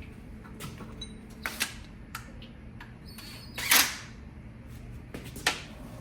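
Metal tools and engine parts clinking and knocking during hand work on an engine's timing components: a few light clicks, a louder rattling clatter a little past halfway, and two knocks near the end.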